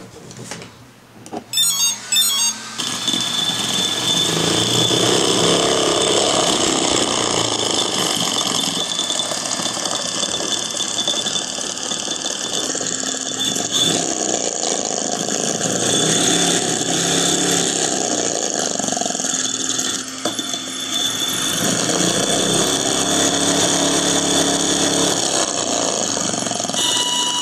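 480KV outrunner brushless motor spinning a monster-truck RC wheel at high speed: a steady high-pitched whine over loud running noise, with a short string of electronic beeps from the ESC about two seconds in. The wheel vibrates and the tyre balloons at high RPM.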